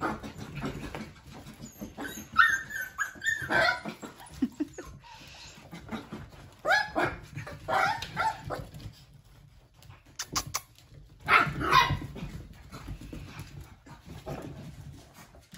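Puppies yapping and barking in play, in three short bouts: about two seconds in, near the middle, and again around eleven seconds. Faint scuffles and clicks fill the gaps between.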